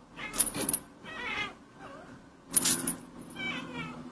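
British Shorthair cat giving about four short meows in quick succession.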